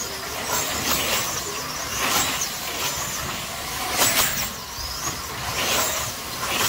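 Slot cars racing: their small electric motors whine, gliding up and down in pitch as cars sweep past every second or two, the loudest pass about four seconds in.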